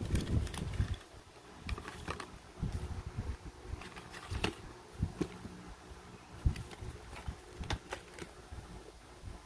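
Hands handling a smartphone's cardboard box and its contents: a low shuffle as the box is lifted in the first second, then scattered light taps and clicks as the inner tray, paper leaflets and charging cable are moved about. A faint steady hum runs underneath.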